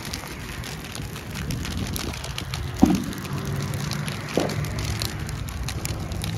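Vehicle fire and burning roadside brush crackling, a dense run of small ticks over a low steady rumble. Two sharp pops stand out: the loudest about three seconds in, and another about a second and a half later.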